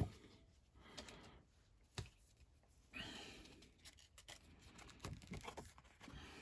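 Faint handling of paper: a booklet and certificate being picked up and leafed through, with soft rustling and scattered small taps and clicks.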